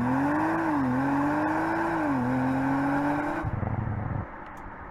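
Audi RS5's 2.9-litre twin-turbo V6 accelerating hard from a launch, its pitch climbing with two quick upshifts of the eight-speed automatic, about one and two seconds in. The engine sound cuts off suddenly about three and a half seconds in, leaving a much fainter steady noise.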